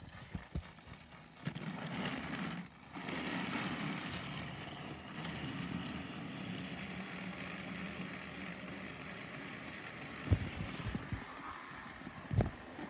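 Battery-powered toy train engines running steadily along plastic track, with a motor hum. Near the end come two sharp knocks.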